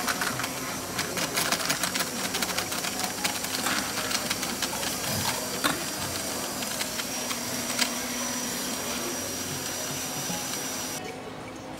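Electric countertop blender running on a jar of fresh fruit juice: a steady motor whir with many sharp clicks in the first half, then smoother, cutting off about eleven seconds in when it is switched off.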